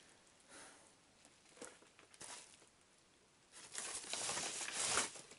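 Paper packaging being handled and crinkled, a few faint rustles at first, then steadier crinkling from about three and a half seconds in.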